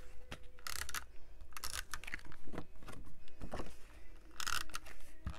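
Adhesive tape runner rolled across the back of embossed cardstock in several short, scratchy strokes, with the card handled between them.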